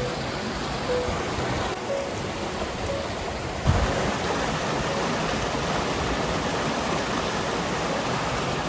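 Steady rushing of a fast stream and waterfalls. A low bump comes about four seconds in, after which the rush is louder.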